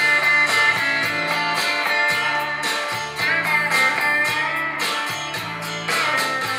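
Guitar-led music playing through an Aiwa NSX-999 mini hi-fi system and its loudspeakers, picked up in the room.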